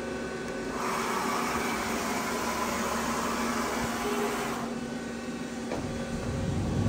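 Steady machine hum in a workshop. About a second in, a loud hiss starts and lasts nearly four seconds, then stops suddenly. A low rumble rises near the end.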